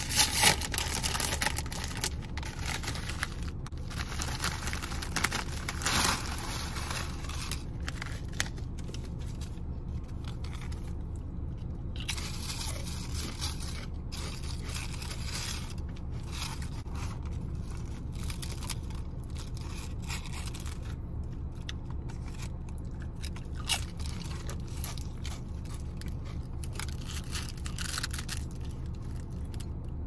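A chip bag crinkling and tearing, loudest in the first second, then a long run of crunching and rustling as orange tortilla chips are crushed onto a sub sandwich on its paper wrapper. A steady low hum runs underneath.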